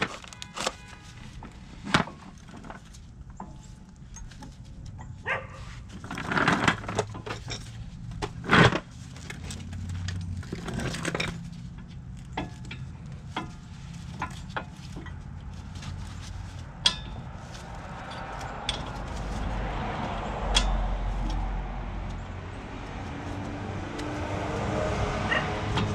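Irregular clinks and knocks of hand tools and caliper bolts being handled at a car's front brake, with a few louder knocks in the first dozen seconds. A low rumble comes in about eighteen seconds in and lasts a few seconds.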